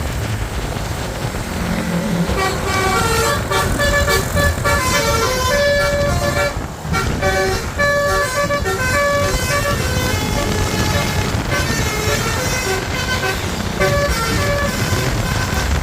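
Bus basuri horn, a multi-tone musical air horn, playing a fast 'telolet' tune of short notes in quick succession, over the bus's running engine.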